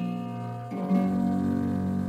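Jazz harp playing slow plucked chords, the notes left to ring; a new chord is struck a little under a second in.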